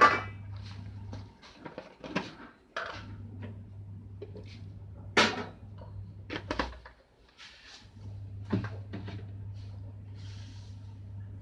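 Kitchen handling sounds: a series of sharp knocks and clinks, as of utensils and dishes being handled, over a low steady hum that drops out twice.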